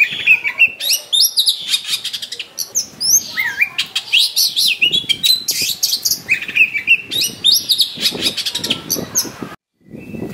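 Oriental magpie-robin (kacer) singing a loud, fast, varied song of whistled notes, rising and falling slurs and rapid rattling trills, which breaks off abruptly near the end.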